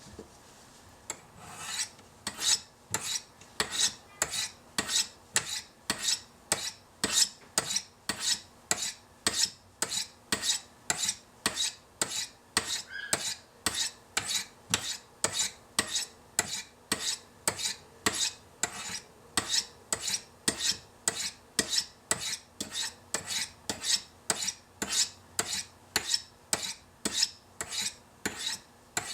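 Steel knife blade of a Chris Reeve Sebenza drawn down the flat faces of a Spyderco Sharpmaker's fine white ceramic rods. The strokes are short, regular scrapes, a little under two a second, and they start about a second and a half in.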